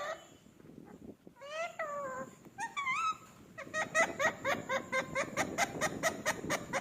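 Pet parrot calling: two drawn-out, bending calls, then from about three and a half seconds in a fast run of short repeated notes, about six a second.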